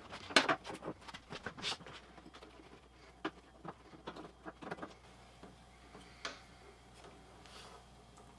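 Hands working in a car's engine bay: a run of clicks, taps and light knocks, densest and loudest in the first two seconds, then sparser single clicks.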